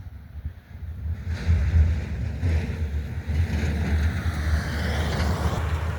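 A car driving past: engine and tyre noise that swells about a second in and stays loud, with a heavy low rumble.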